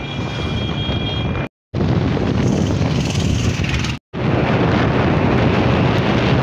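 Wind rushing over the microphone of a TVS motorcycle riding at about 95 km/h, with the engine's steady drone underneath. The sound cuts out completely for a moment twice, about a second and a half in and again about four seconds in.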